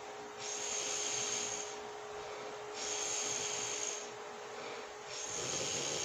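A sleeping woman breathing heavily and snoring. There are three hissing breaths, each a little over a second long, about every two and a half seconds.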